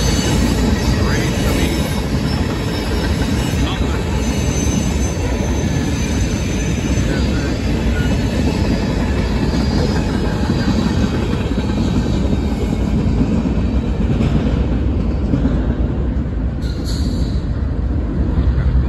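Freight cars (tank cars and covered hoppers) rolling past close by: a steady rumble of steel wheels on rail, with a thin, high wheel squeal about four to seven seconds in.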